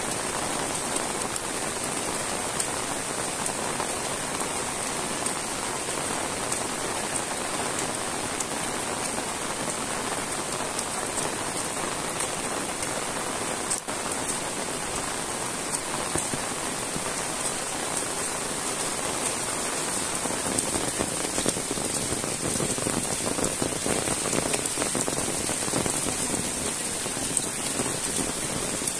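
Heavy rain falling steadily on foliage and wet ground, a dense patter of drops, a little louder in the last third.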